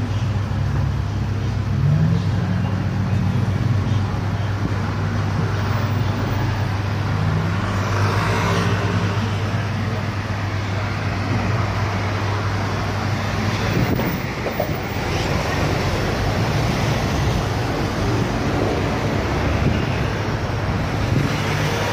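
Road traffic on the street below: a steady low engine hum under continuous traffic noise, swelling briefly about eight seconds in as a vehicle goes by.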